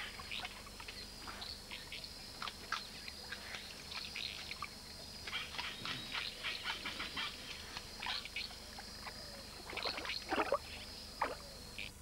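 Giant otter chewing an eel: irregular wet smacking and crunching clicks, thickest in the middle seconds.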